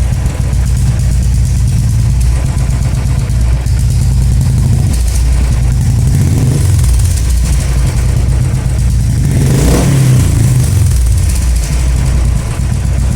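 Royal Enfield single-cylinder engine running through an aftermarket short bottle silencer, a deep steady exhaust thump at idle with a couple of brief revs, the clearest about ten seconds in.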